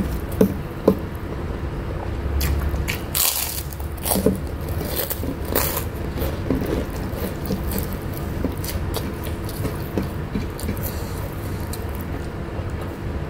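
Close-up eating sounds: chewing, crunching and lip smacks as mouthfuls of rice with shredded beef dendeng are eaten by hand, with fingers scraping food across the plate. There are two sharp clicks within the first second, all over a steady low hum.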